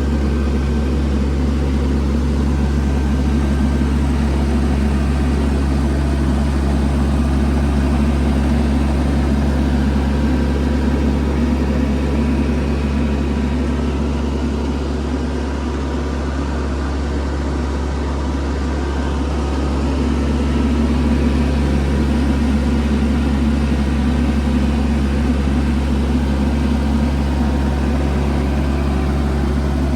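Diesel engine of a TYM T474 HST compact tractor running steadily, with a slight dip in level partway through.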